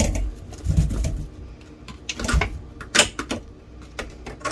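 Kitchen handling noises while strawberries are being washed: a few low bumps followed by sharp clicks and knocks, the loudest about three seconds in.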